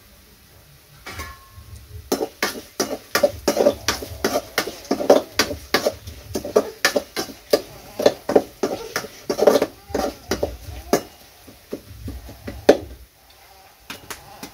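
A metal spatula scraping and knocking against an aluminium kadai while stirring peanuts and spices. Rapid, irregular scrapes and clinks start about two seconds in and stop shortly before the end.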